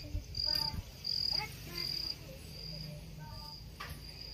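A cricket chirping: a high chirp repeating at an even pace, about three chirps every two seconds.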